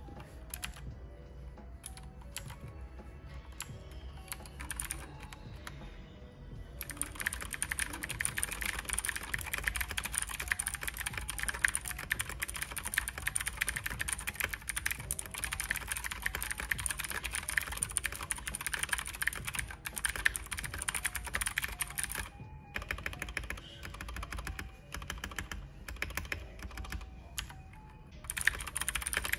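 Typing on a Keychron K2 mechanical keyboard with clicky Gateron Blue switches, its PCB tape-modded and foam-dampened: scattered keystrokes at first, then dense, fast typing from about a quarter of the way in, with a short pause about three quarters through. Background music plays underneath.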